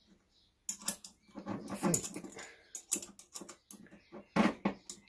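Small steel bolts and parts clicking and scraping against an aluminium clutch housing as they are fitted and turned by hand. The clicks and knocks are irregular, loudest about two seconds in and again near the end.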